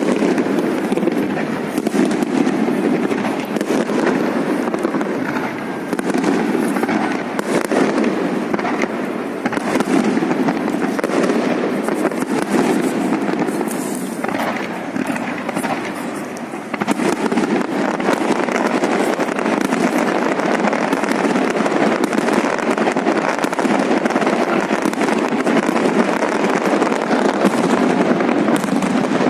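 Fireworks salute going off in a dense, continuous run of bangs and crackles, easing briefly about halfway through before picking up again.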